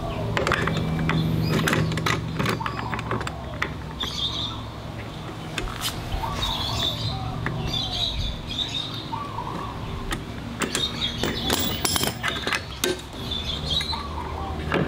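Socket wrench ratcheting and clinking on a scooter's clutch nut as the nut is worked loose, in runs of sharp clicks, with birds chirping in the background.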